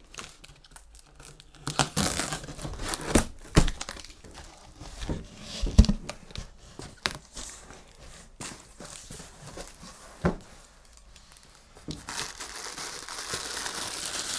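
A cardboard shipping box being opened by hand: tearing, scraping and a series of knocks as the flaps and packing are handled. About two seconds before the end comes a steady crinkling of plastic wrapping as a wrapped part is lifted out of its foam tray.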